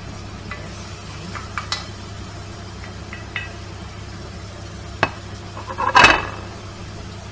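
Metal spoon scraping and clinking on a plate as chopped onions are pushed into a steel pot of hot oil to sizzle. There are a few light clicks, a sharp click about five seconds in, then a louder clatter of the spoon against the pot about six seconds in as the onions are stirred.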